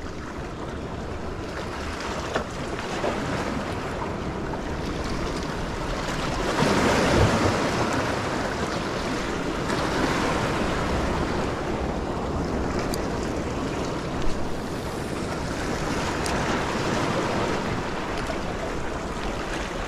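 Small waves washing and splashing over shoreline rocks, swelling louder about six seconds in, with wind buffeting the microphone. A couple of brief sharp clicks stand out.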